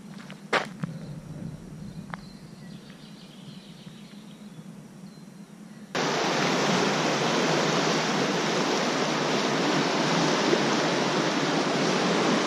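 Quiet outdoor background with a sharp click about half a second in and another around two seconds. About six seconds in, the loud, steady rush of a fast, swollen river over rapids comes in suddenly and holds to the end.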